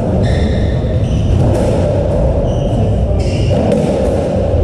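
Racketball rally on a squash court: the ball knocked against the walls and racket every second or so, with short high squeaks from shoes on the court floor, over a steady hall noise.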